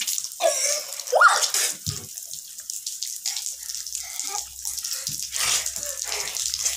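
Water falling and splashing as home-made artificial rain, an uneven spattering hiss. A short rising squeal about a second in.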